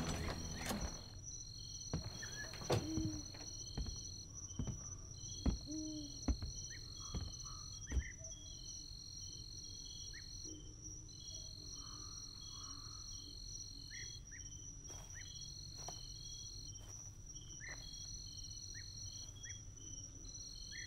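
Insects chirping steadily in a high, evenly pulsing chorus, with a few scattered sharp knocks in the first eight seconds.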